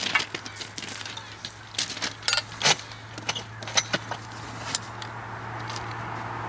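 Irregular clicks and knocks from a worker's boots on railway ballast and his hands on a yellow track-barrier pole, its fittings clattering as he sets it; the sharpest knock comes just under three seconds in.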